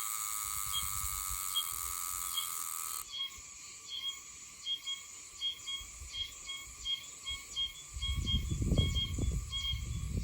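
Oshima cicada (Meimuna oshimensis) calling: short, high, metallic notes repeated about two to three times a second. In the first three seconds a steady shrill drone, which cuts off suddenly, lies under the notes. Low rumbling noise comes in near the end.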